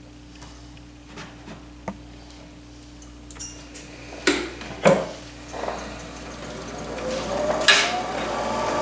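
Several sharp knocks and clicks of handling at the lathe, then, about six and a half seconds in, a wood lathe starting up, its motor whine rising steadily in pitch as it spins up.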